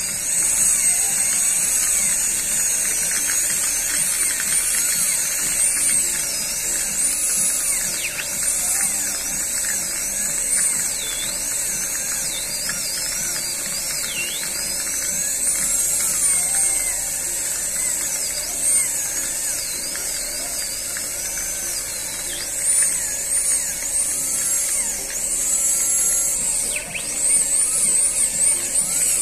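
High-speed dental handpiece whining at a high pitch, the pitch dipping and wavering as it is pressed against the teeth, grinding off leftover bracket adhesive after braces removal.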